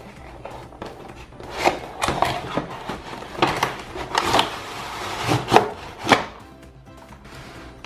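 Toy knife cutting apart Velcro-joined play fruit: a string of sharp knocks and short rips, with light background music.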